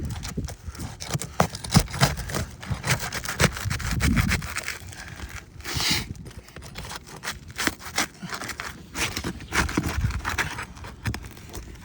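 A metal roof snake scraping and clicking as it is pried under sealed asphalt shingles, with irregular knocks and a louder rasp about six seconds in. The shingles are so firmly sealed that they tear rather than come unsealed, a sign that they are not repairable.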